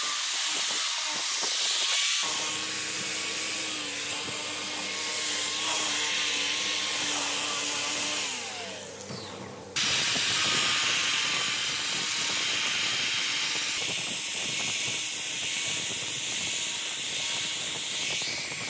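Angle grinder with a sanding disc running against rusty metal, sanding the rust off an old electric motor's cast-iron housing and rotor, with a steady high whine over the scouring noise. About eight seconds in, the whine falls away as the grinder winds down, then the grinding starts again abruptly.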